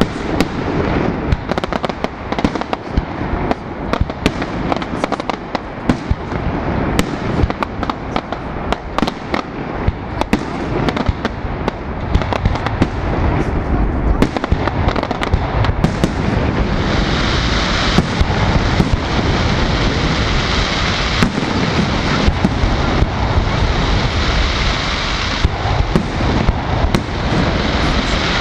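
Fireworks display: aerial shells bursting in a dense, continuous run of sharp bangs and pops. A little past halfway a steady high crackle joins the bangs.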